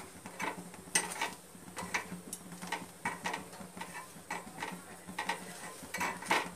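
Metal kitchen tongs clicking and scraping as a thick roti is turned over an open gas flame: irregular light ticks, several a second at times, over a faint steady hum.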